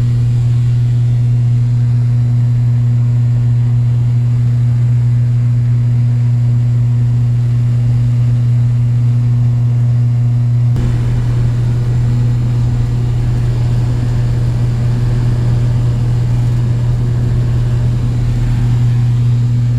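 Engine running steadily at constant speed, a loud, even low hum with no change in pitch. There is a slight shift in the sound about halfway through.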